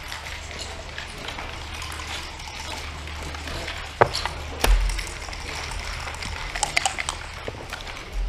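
Backgammon checkers clacked down on a wooden board, two sharp knocks about half a second apart, then a quick run of small clicks from a pair of dice rolled onto the board. A steady low hum runs underneath.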